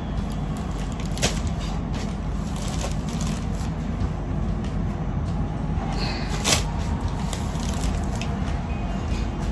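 Rustling and crinkling of a saree being unfolded and spread out, with sharp crackles about a second in and again past the middle, over a steady low hum.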